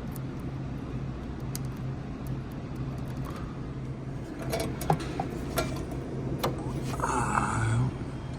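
Steady low machine hum, with a run of sharp clicks and taps in the middle and a brief rustling hiss near the end.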